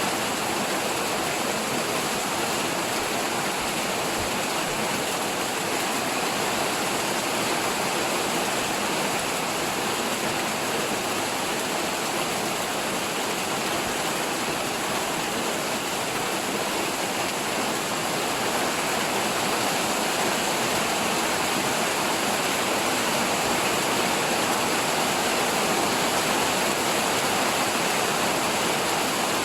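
Heavy rain pouring down in a steady, dense hiss that holds at the same level throughout.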